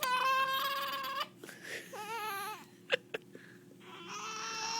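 Infant crying and fussing in three drawn-out wails: a long one at the start, a shorter wavering one about two seconds in, and a third rising near the end. A couple of faint clicks fall between the second and third cries.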